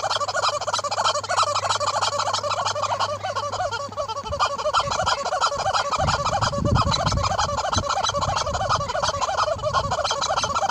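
Yellow rubber chicken toy squawking over and over in quick succession as a horse chomps on it. Low rumbling joins in over the second half.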